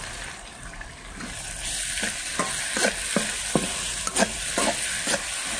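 Minced garlic frying in oil in a wok, with oyster sauce just added: a steady sizzle that swells about a second and a half in. From about two seconds in, a metal spatula scrapes and stirs across the wok about twice a second.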